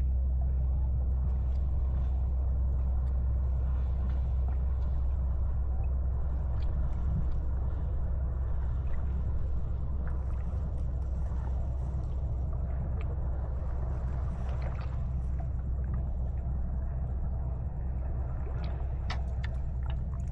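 A boat's engine running steadily, a low even drone.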